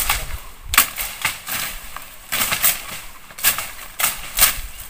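A hand blade chopping into brush and vines: about eight sharp cuts at uneven spacing, a little under two a second, with leaves and stems rustling in between.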